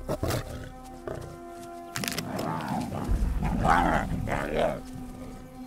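Lions growling over a fresh kill as a male pushes in among the feeding lionesses, with three growls in the second half. Background music with sustained notes plays under them.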